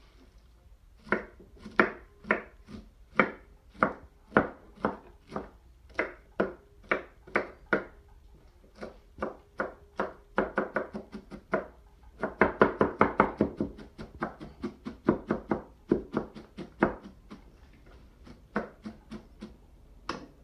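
Knife chopping shredded cabbage on a wooden tabletop: steady knocks about two a second, breaking twice into quick flurries of rapid chops in the middle, then slower knocks again after a short pause.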